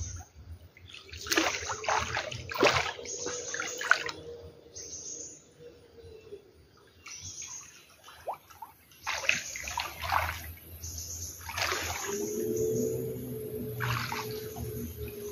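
Water splashing and sloshing in irregular bursts as a person wades and swims through chest-deep floodwater. A steady droning tone joins in for the last few seconds.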